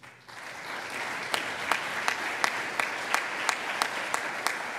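Audience applauding. The clapping builds up within the first second, and one clapper stands out above the rest with sharp, regular claps about three a second.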